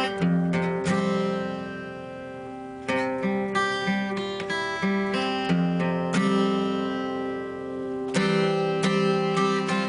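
Background music played on acoustic guitar: chords plucked and strummed in a steady rhythm.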